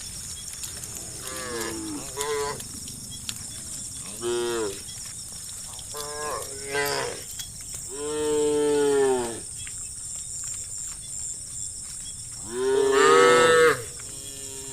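Several cows mooing one after another in a herd, some calls short, and the longest and loudest near the middle and near the end. A steady faint high hiss runs underneath.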